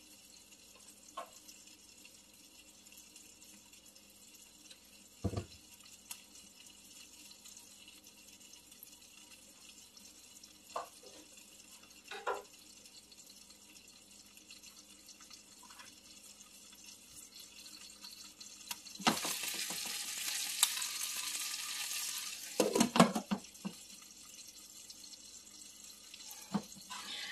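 Food sautéing in a covered pan, a faint steady sizzle with a few light clicks. About 19 s in, a much louder hiss for about three and a half seconds, followed by a cluster of sharp knocks and clatter and a few more near the end.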